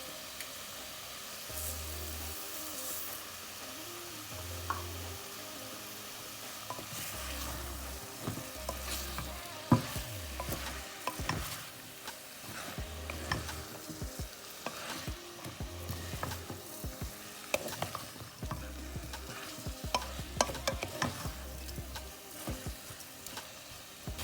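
Food sizzling in a hot pot while a utensil stirs it, with repeated sharp clicks and scrapes of the spoon against the pot from about a third of the way in.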